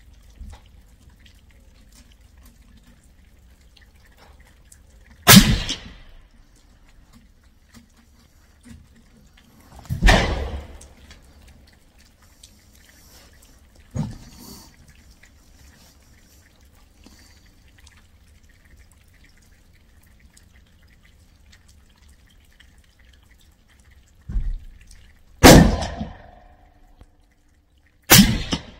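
A .308 Remington 700 SPS Tactical bolt-action rifle fires four loud suppressed shots through a Yankee Hill Resonator K-30 suppressor, spaced several seconds apart, with the last two close together near the end. The shots echo off the walls of the enclosed range. Two fainter bangs come between them, one about halfway through and one just before the third shot.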